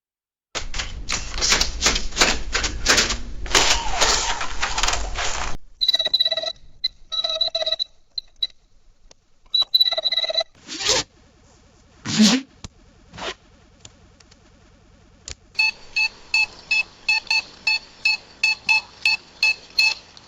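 A run of money and beep sound effects. First about five seconds of coins jingling and clattering. Then several short electronic beeps, a few clicks and a sliding tone, ending in a fast regular series of electronic beeps about three a second.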